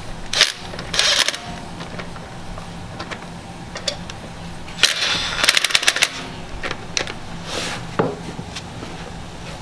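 Cordless impact wrench running lug nuts onto a car wheel in several short bursts, with the longest stretch of rapid hammering about five seconds in.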